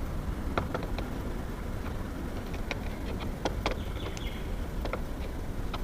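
Scattered light metal clicks and taps, about eight in irregular succession, as the hinge-bending tool and its Allen key are worked on a door hinge, over a steady low background rumble.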